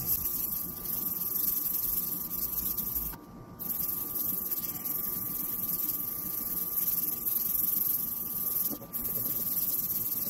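800-grit sandpaper rubbed by hand over a plastic headlight lens, dry-sanding off its rough, yellowed surface: a steady scratchy hiss that breaks off briefly about three seconds in and again near nine seconds. A thin steady hum tone sits underneath.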